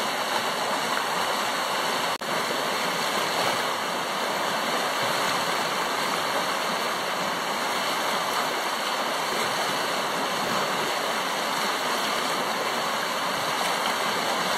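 A fast river rushing over a shallow rapid: steady white-water noise with no let-up.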